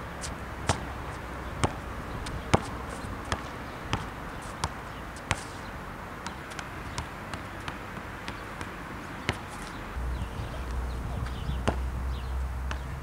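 Basketball bouncing on an asphalt court as it is dribbled, about one bounce a second for the first five seconds, then only a few scattered bounces. Wind rumbles on the camera's built-in microphone and grows stronger near the end.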